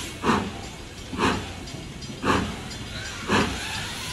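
Steam locomotive working slowly: four evenly spaced exhaust chuffs about a second apart over a steady hiss of steam.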